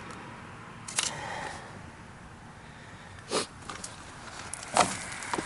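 A few short, sharp clicks and taps of handling noise, one about a second in and the loudest near the end, against a quiet background.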